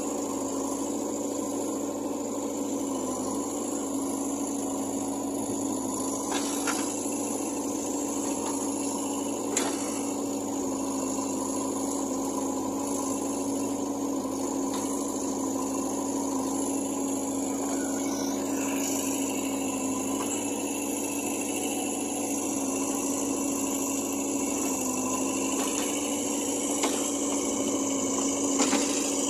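JCB backhoe loader's diesel engine running at a steady speed, with a constant hum that hardly changes pitch. A few light clicks and knocks come through on top.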